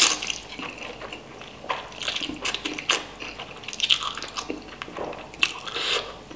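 A person slurping instant noodles in broth and chewing with the mouth open: a run of wet sucking and smacking noises, with several sharper slurps through the middle.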